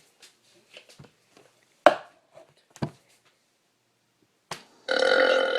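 A few short sharp clicks, then near the end a loud, long burp begins after a drink has been chugged.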